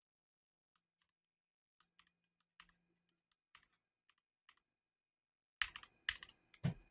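Keys on a Win60 HE keyboard being pressed: scattered faint clicks, often in pairs, then a few louder clacks near the end.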